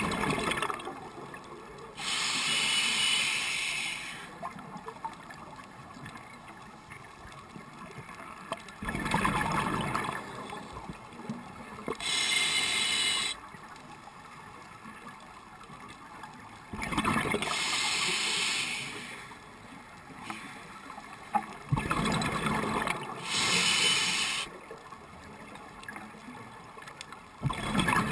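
Scuba diver breathing through a regulator: hissing inhalations through the demand valve alternating with bubbling exhalations, in slow breaths every five or six seconds.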